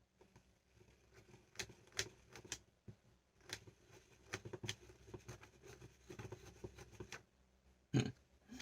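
Small plastic toy pieces, a Squidward ballpen figure and its stand, being handled and fitted together: scattered light clicks and taps, a few sharper ones a couple of seconds in.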